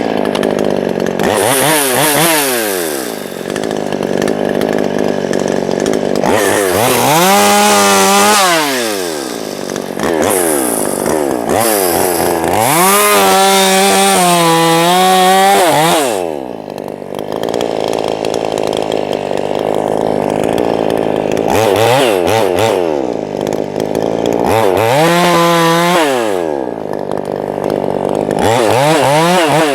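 Small two-stroke chainsaw run up to full throttle and let back down to idle about six times, the high speed held for a second or more each time.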